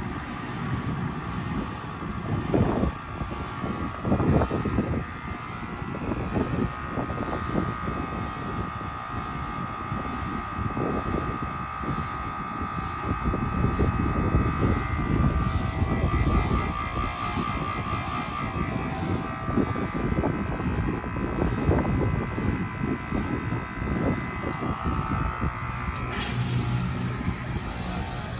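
Outdoor unit of a 2023 Carrier heat pump in a short defrost cycle: a steady whine over uneven rushing noise, with a sharp change near the end as the unit switches over, after which a low hum sets in.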